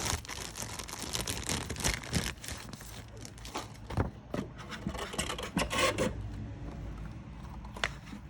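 Paper and packaging being handled: irregular rustling, crinkling and light clicks as a paper manual is taken out and unfolded.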